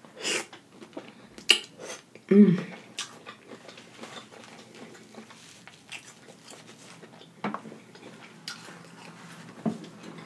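Close-miked eating of boiled shrimp and crawfish: mouth sounds of sucking and chewing, with scattered wet smacks and clicks and a short hum about two and a half seconds in.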